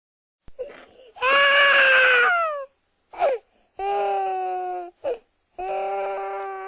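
A cat meowing: three long drawn-out meows that drop in pitch at the end, with a few short ones between them.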